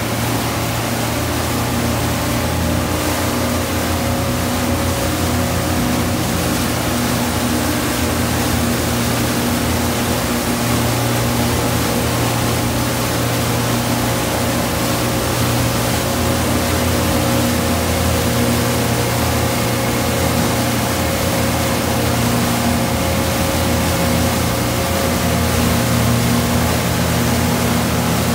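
Motorboat engine running at a steady cruising speed, a constant drone. It is mixed with the rush of churning wake water and wind.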